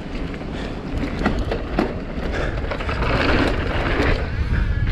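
Mountain bike descending a dirt jump trail at speed: a rumbling rush of wind and tyre noise that grows louder, with sharp clacks and rattles from the bike over bumps, two loud ones between one and two seconds in.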